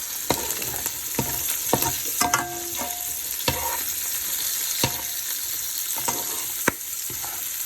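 Chicken, peppers and onions sizzling in a frying pan, with a utensil knocking and scraping against the pan about seven times as the food is stirred.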